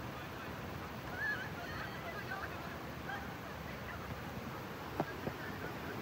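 Steady rush of water, with a few short warbling calls about a second in and two sharp knocks near the end.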